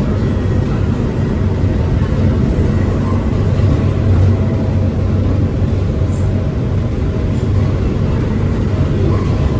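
Steady low rumble of a moving train, with a faint steady whine above it.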